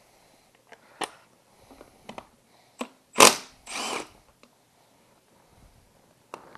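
Milwaukee Fuel cordless tool briefly spinning a socket to back out the drain plug of a motorcycle's rear final drive: a loud sharp burst about three seconds in, then about half a second of whirring. Light clicks and knocks of tools and metal being handled come before it.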